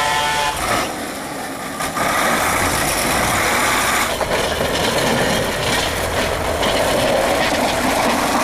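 Loaded logging truck's diesel engine running steadily, dropping briefly quieter about a second in.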